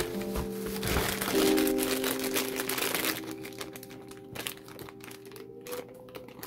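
Clear plastic bags and bubble wrap crinkling as they are handled, strongest in the first half, over background music with long held notes.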